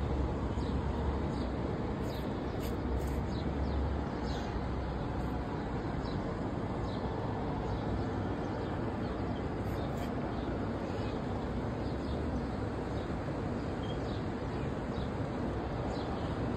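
Steady hum of city traffic from the streets below, with small birds chirping often in short, quick calls.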